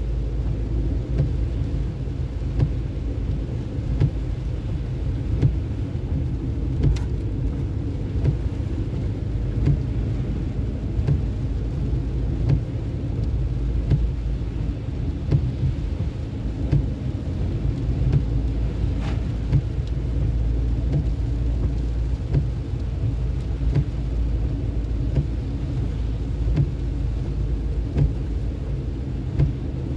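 Road travel noise from a moving vehicle: a steady low rumble with irregular low thumps, like wind and road buffeting.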